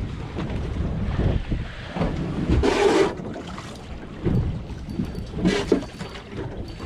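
Wind buffeting the microphone over water on a small boat, a steady low rumble, with two brief hissing bursts about two and a half and five and a half seconds in.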